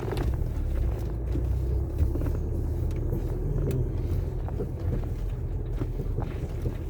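A vehicle driving slowly over a rough road, heard from inside: a steady low engine and tyre rumble with scattered knocks and rattles.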